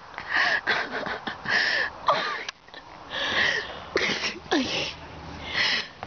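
Stifled laughter: several breathy bursts of giggling with short squeaky rises and falls in pitch.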